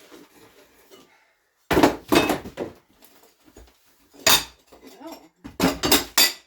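Clinking clatter of hard demolition debris being handled, in three loud bursts: a longer one a couple of seconds in, a short one past the middle, and another near the end.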